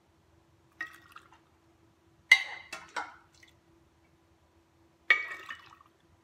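A metal half-cup measure scooping hot pickling brine from a stainless steel pot: a few sharp metallic clinks with short ringing tails, the loudest about two seconds in, along with sloshing and dripping liquid.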